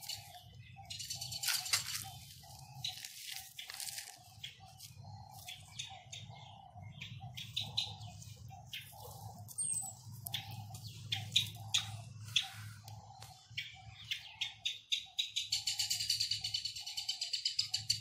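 A small bird chirping in short high calls between bouts of wing flapping, with a fast run of chirps near the end.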